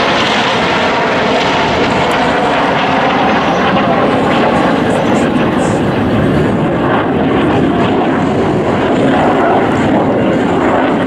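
Steady, loud jet noise from a formation of KAI T-50B jets, each with a single General Electric F404 turbofan, flying past overhead.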